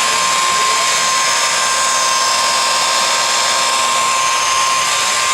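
Makita rotary buffer running steadily with a constant whine, machine-polishing car paint with compound.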